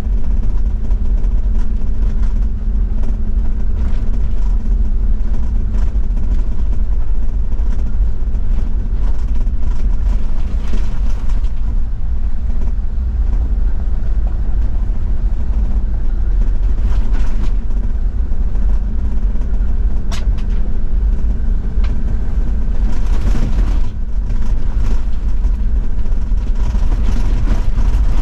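Toyota Land Cruiser 70-series diesel running steadily on the move along an unpaved forest road, with tyre and road noise, and a few sharp knocks and clicks from the road, one of them about twenty seconds in.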